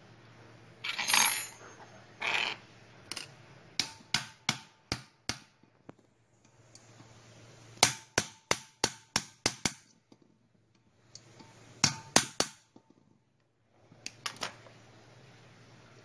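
Socket tool working the nut on the shaft of a twin-tub washing machine's spin motor: runs of sharp metallic clicks, about three a second, in several groups with short pauses, and a louder scraping rattle about a second in.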